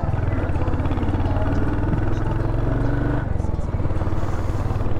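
Royal Enfield Hunter 350's single-cylinder engine running at low speed with an even beat of exhaust pulses. The engine note drops a little about three seconds in.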